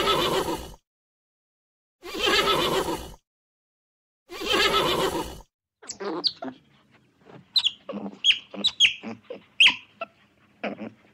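A horse whinnying three times, each call about a second long with silence between. Then, about six seconds in, otters chirping and squeaking in a quick run of short, high calls mixed with lower ones.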